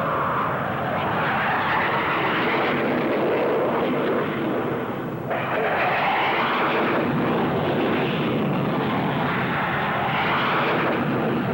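English Electric Lightning jet fighters, twin Rolls-Royce Avon turbojets each, taking off with reheat lit: a loud, continuous jet roar. The roar breaks off abruptly about five seconds in and comes straight back.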